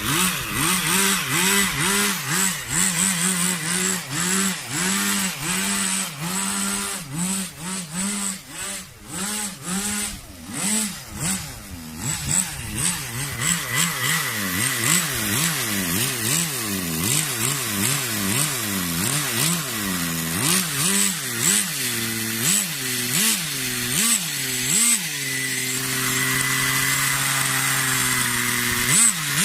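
Nitro RC car engine revved in quick repeated throttle blips, its pitch rising and falling over and over, then settling into a steady run near the end. The high-speed needle has just been leaned out about half a turn because the engine was running on the hot side.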